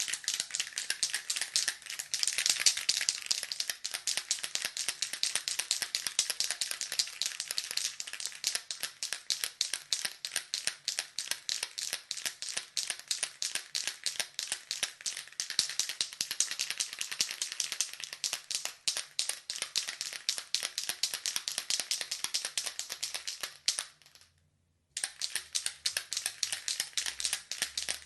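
Aerosol spray can being shaken hard, its metal mixing ball rattling rapidly against the inside of the can. The rattle stops for about a second near the end, then starts again.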